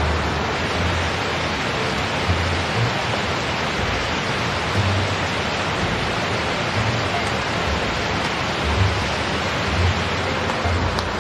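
Steady hiss of heavy rain falling on the tent and the wet ground around it.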